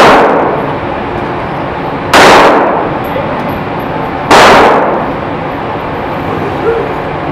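Three gunshots fired about two seconds apart, each a sharp crack followed by a short echoing decay in an indoor firing range.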